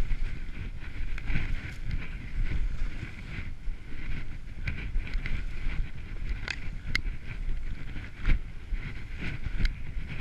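Skis running downhill through tracked-up powder, with wind rushing over the camera microphone in gusts and a few sharp clicks scattered through.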